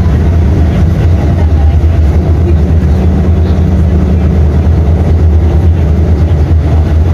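Mercedes-Benz O-500U bus's OM 926 LA six-cylinder inline diesel engine running at a steady speed: a loud, even low drone with no revving.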